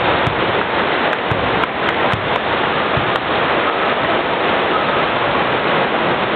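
Steady hubbub of a gymnasium echoing around a hardwood basketball court, with a few sharp clicks in the first three seconds.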